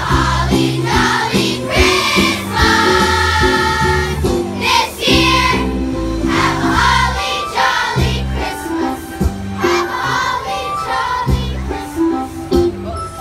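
Children's choir singing a Christmas song in unison over instrumental accompaniment with a steady bass line.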